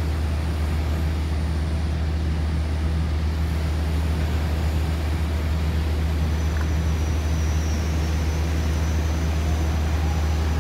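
A steady low mechanical hum at a constant level, with no breaks or sudden sounds.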